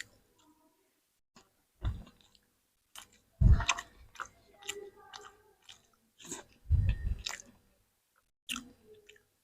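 Close-up chewing and crunching of food: irregular bites with short silences between them, the loudest crunches about three and a half and seven seconds in.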